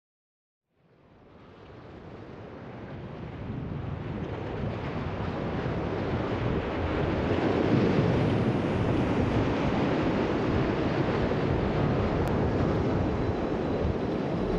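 Ocean surf washing against the shore, fading in from silence about a second in and building over several seconds to a steady wash.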